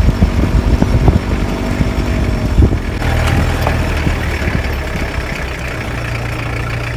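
4x4 vehicle engine running at low speed as it crawls over a rough gravel mountain track, with irregular thumps and knocks for the first three seconds, then a steady low engine hum under the hiss of tyres on gravel.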